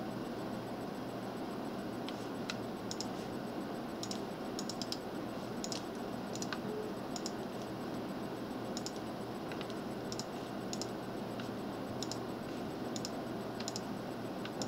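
Computer mouse button clicks, many in quick press-and-release pairs, about one every second, starting about two seconds in, over a steady background hiss.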